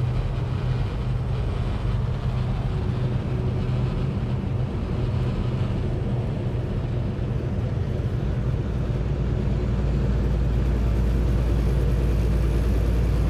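Steady engine drone and road noise inside a moving truck's cab at highway speed. The low rumble grows louder and steadier about ten seconds in.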